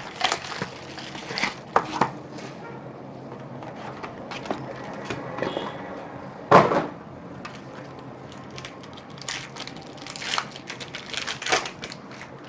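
Hands handling a trading-card hobby box and its packaging: scattered clicks, taps and rustles of cardboard and wrapper, with one louder knock about six and a half seconds in and a run of quicker taps near the end.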